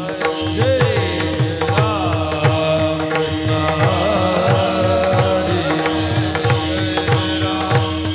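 Devotional bhajan: a male voice sings a long, gliding melodic line over a steady held drone, while two pakhawaj drums keep a regular beat with sharp cymbal-like clicks.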